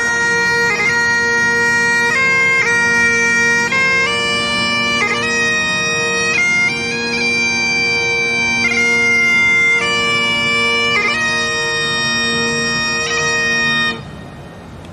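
Bagpipes playing a tune over their steady drones, with quick grace-note flourishes between the melody notes; the playing stops about fourteen seconds in.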